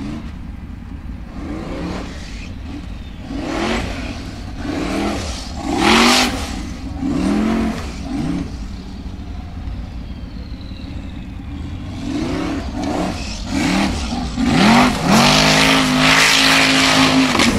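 Formula Offroad buggy's engine revving hard in repeated short bursts, each rising in pitch and falling away, while its paddle tyres throw dirt. Near the end it holds high revs for about two seconds as it climbs a near-vertical dirt wall.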